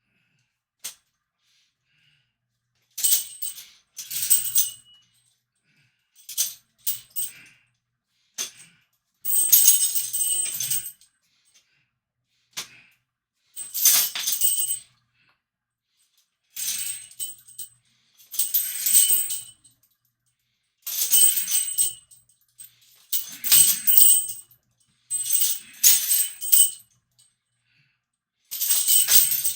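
Chains hung on a weight bar jangling and clinking with each repetition, in rounds about every two to three seconds with silence between.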